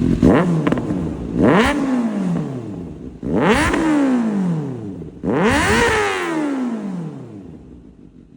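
Kawasaki ZX-6R inline-four engine, fitted with an SC-Project aftermarket exhaust, revved with four sharp throttle blips from idle. Each blip jumps up quickly and falls back slowly. The engine drops back to a quieter idle near the end.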